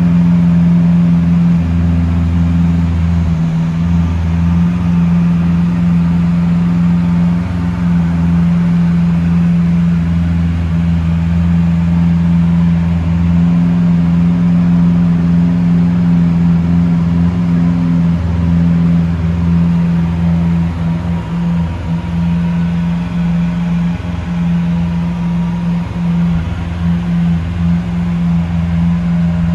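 Lamborghini Aventador SV's 6.5-litre V12 idling with a steady, deep drone.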